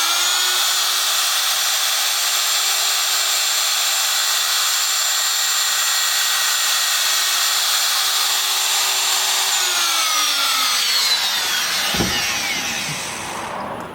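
Router motor switched on, its whine rising as it spins up, then running at a steady high pitch for about nine seconds. It is then switched off and winds down with a falling pitch over a few seconds, with a single knock partway through the spin-down.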